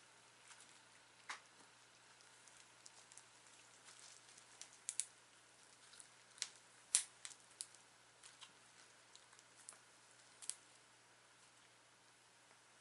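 Faint, scattered small clicks and crackles of hands squishing and breaking up air-dry foam clay for slime, irregular, with the sharpest click about seven seconds in.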